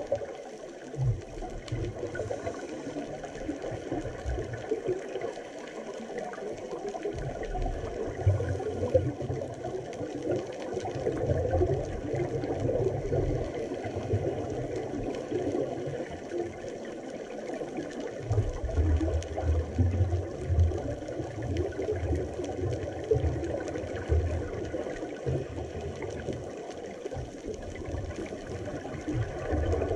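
Underwater ambience heard through a camera housing: a steady, muffled wash of water noise with irregular low rumbling surges that come and go.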